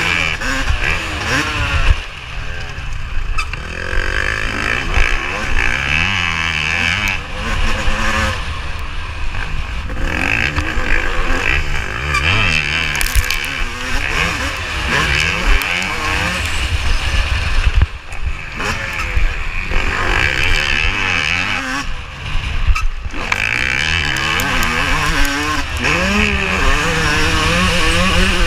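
Yamaha YZ250 two-stroke motocross engine heard close on the bike, revving hard up and down through the gears while racing. The throttle is chopped off briefly a few times before the revs climb again.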